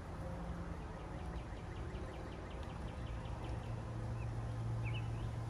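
Outdoor ambience: a faint, rapid run of high ticks in the first half, then a few short bird chirps near the end, over a low steady hum that comes in about halfway through.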